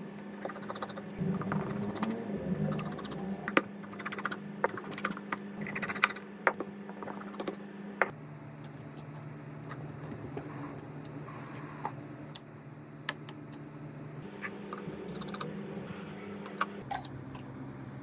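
Fingers handling and tapping an iPhone XR: scattered light clicks and taps, thickest in the first eight seconds, over a steady low hum.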